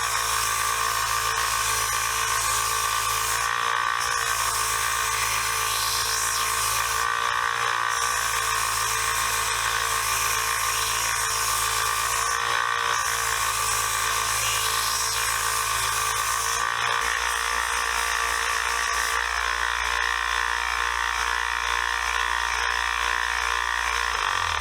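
Electric wire wheel running steadily against the steel of a pipe wrench, stripping rust and pitting. It dips briefly every few seconds and starts winding down at the very end.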